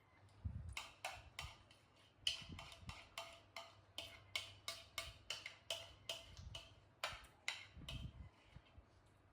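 A quick run of short, sharp clicks or taps, about three a second, starting about a second in and stopping near the end.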